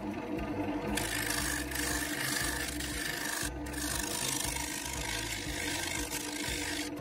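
Bowl gouge cutting the inside of a spinning Chinese elm bowl on a wood lathe: a continuous hissing, scraping cut over the lathe motor's steady hum. The cut starts about a second in and breaks off briefly a little past the middle.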